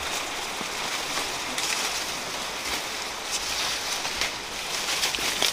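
Steady rustling hiss of sugarcane leaves as people push through the tall cane, with a few sharper crackles near the end.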